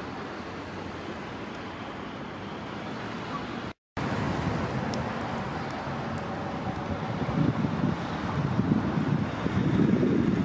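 Steady hiss of road traffic and wind, with wind buffeting the microphone in gusts that grow in the later part. The sound cuts out briefly about four seconds in.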